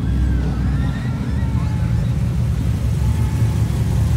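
Engines of a slow line of sports and muscle cars running as they drive past at low speed, a steady low drone.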